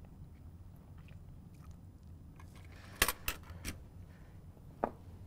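Small hard parts clicking and clattering as they are handled and set down on a workbench: three quick clicks about three seconds in and one more near the end, over a low steady hum.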